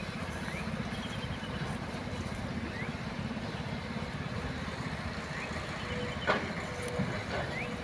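Loaded dump truck driving away along a dirt road, its engine a steady low rumble. A short sharp knock about six seconds in.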